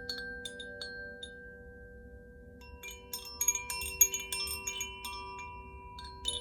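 Koshi chime being swayed by hand, its clapper striking the tuned metal rods inside the tube so that clear bell-like tones ring and overlap. After a lull of about a second and a half, a fresh cluster of strikes starts about three seconds in, and more come at the end.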